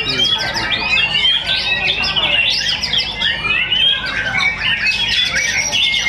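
White-rumped shama (murai batu) singing a fast, unbroken stream of whistles, chirps and sliding notes, including the loud burst phrases that fanciers call 'tembakan' (shots).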